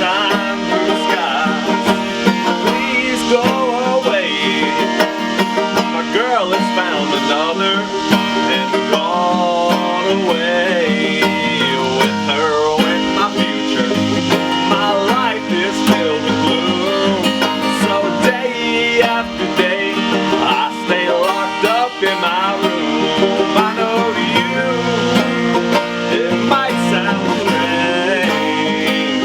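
Acoustic guitar and banjo playing a soul song in a bluegrass style, with a voice singing the melody over them.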